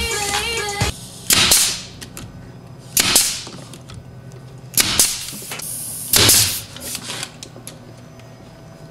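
Pneumatic brad nailer driving nails into glued MDF subwoofer-box panels: five or six sharp shots, one every second or two.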